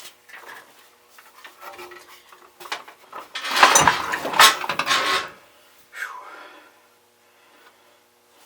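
Metal parts of a rusty reel mower clanking and scraping as they are forced. Light clicks come first, then a loud rattling scrape of about two seconds a little past the middle, and a shorter scrape after it.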